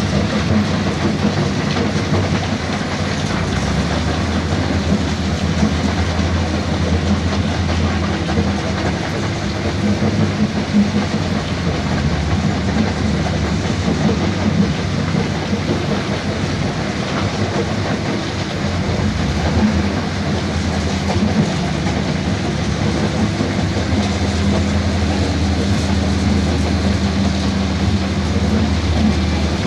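Diesel dump truck running with a loud, steady rattle, its engine note shifting up and down a few times.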